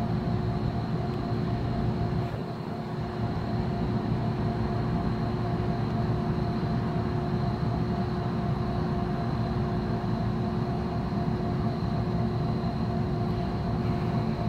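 Steady mechanical hum over a low rumble, with a few constant tones, dipping briefly about two seconds in.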